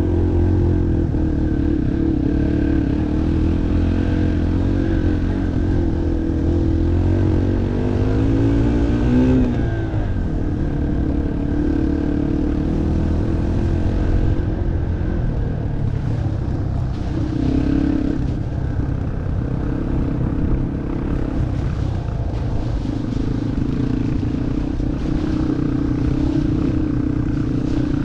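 Off-road motorcycle engine running under throttle, its pitch climbing steadily to about nine seconds in and then dropping sharply, before carrying on at varying revs.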